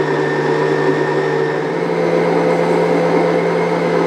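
Mito MX100 stand mixer's motor running steadily, its wire whisk beating egg whites in a stainless steel bowl, still at the early stage before they turn foamy. Its pitch rises slightly about two seconds in.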